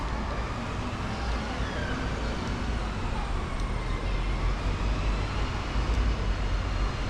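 Road traffic on a city street: a steady low rumble of vehicles running past, swelling slightly about halfway through.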